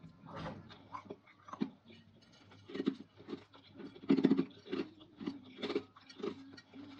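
Close-up crunchy chewing of dried fruit and vegetable pieces, with irregular bites and crunches; the loudest crunch comes about four seconds in.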